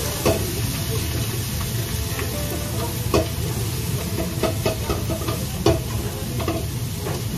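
Stir-frying in a wok over a gas flame: food sizzling while a metal utensil scrapes and clanks against the wok every second or so, over a steady low rumble.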